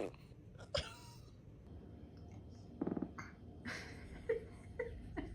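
Faint, scattered small sounds from a baby: brief squeaks and breaths, with one short buzzing sound about three seconds in.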